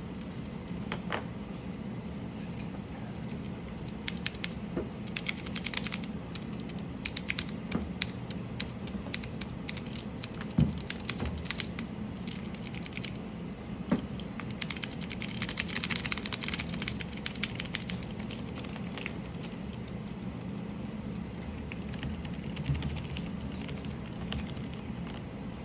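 Typing on a mechanical keyboard: a run of key clicks that comes in bursts, busiest about five seconds in and again from about fifteen seconds in, with two louder knocks in between. A steady low hum lies underneath.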